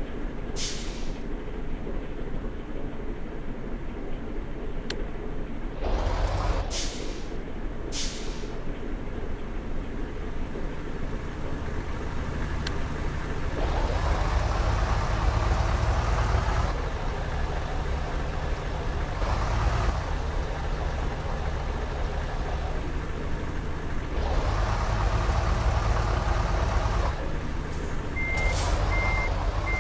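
Bus engines running and revving up several times, with short sharp air-brake hisses in between. A reversing beeper starts beeping steadily near the end.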